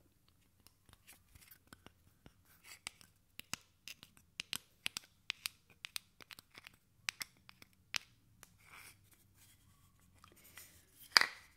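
Long fingernails tapping and scratching on a small wooden box held close to the microphone: a run of sharp, irregular taps, with one louder click near the end.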